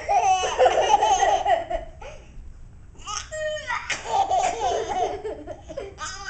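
A baby laughing hard in bursts, with a young girl laughing along with him. The laughter starts suddenly, breaks off briefly about two seconds in, and picks up again.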